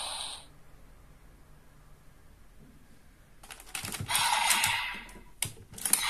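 An electronic toy belt's sound cuts off about half a second in. From just past the middle, the hard plastic of a toy transformation belt and its buckle clicks and clacks as it is handled and shifted into position: a rattling run of clicks lasting about a second, then a few single clicks.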